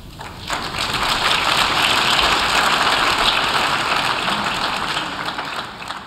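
Audience applauding. It swells in during the first second, holds steady, and fades out near the end.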